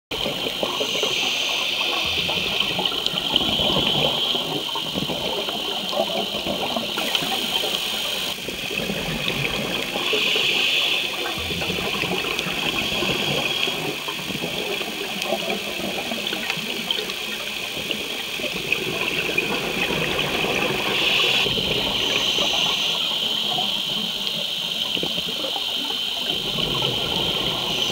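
Underwater recording of rushing, bubbling water noise that surges every several seconds, from a scuba diver's regulator and exhaled bubbles.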